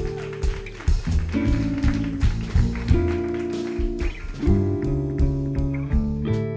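Live jazz band: hollow-body electric archtop guitar playing chords and lines, with double bass and a drum kit accompanying.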